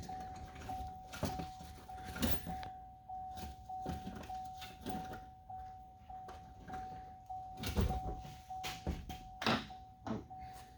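A truck's door-open warning chime repeating steadily, a single tone pulsing about twice a second, with scattered clicks and knocks of door parts being handled.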